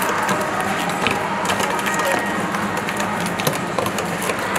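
A utensil stirring and scraping a thick spice paste in a plastic tub, small irregular clicks and scrapes, over a steady low hum.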